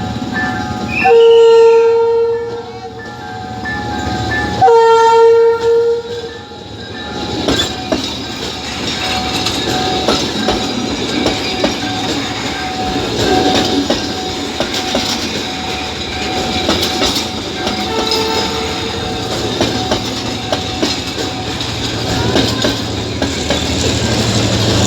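Train horn giving two loud blasts, each a second or two long, then a shorter, quieter blast later on. Between and after them the train runs steadily with a rolling rumble and wheel clatter, growing louder near the end.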